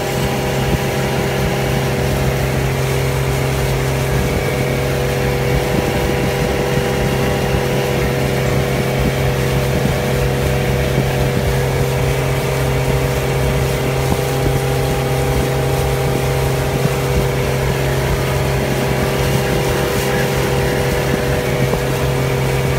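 Outboard motor of a small boat running steadily while under way, holding one constant pitch.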